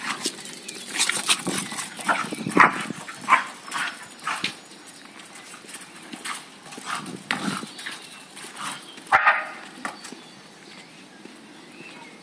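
Lakeland terrier giving short, irregular barks and yaps while playing, busiest in the first few seconds, with the loudest bark about nine seconds in.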